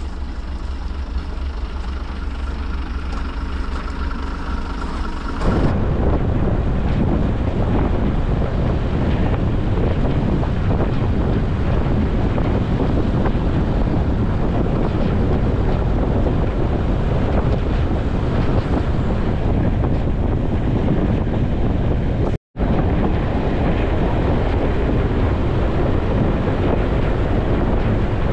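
Steady diesel hum with several held tones, then from about five seconds in loud wind buffeting the microphone over the rumble of the diesel-hauled train's coaches running along the track. The sound cuts out for an instant near the end.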